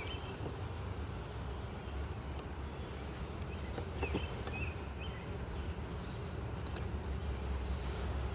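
Honeybees buzzing steadily around an opened hive, a continuous low hum of many bees in flight.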